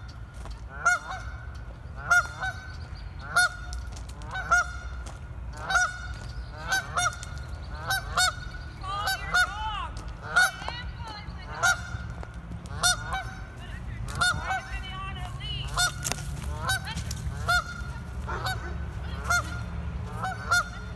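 A Canada goose giving a long run of alarm honks, about one a second, coming faster in the middle with some quicker, wavering calls mixed in; the alarm of a goose being chased by a dog.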